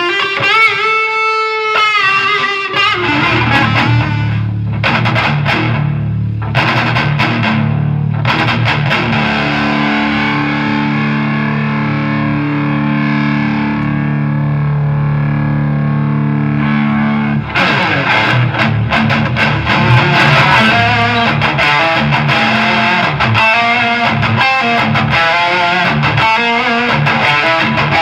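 Electric guitar played through a Snake Oil Fine Instruments Marvelous Engine overdrive pedal, with distorted gain. A bent note with vibrato opens, a chord rings out for several seconds in the middle, and faster riffing follows.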